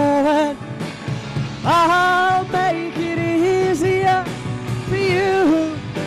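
Live rock song: a sung melody of held notes, scooping up into some of them, over a band accompaniment.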